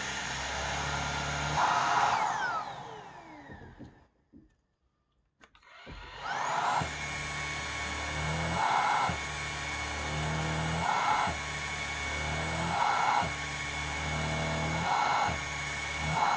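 Xiaomi Shunzao Z11 cordless stick vacuum's motor running with a high whine. About two seconds in it is switched off and winds down in a falling whine to silence. Around six seconds it starts again, spins up in a rising whine and runs steadily.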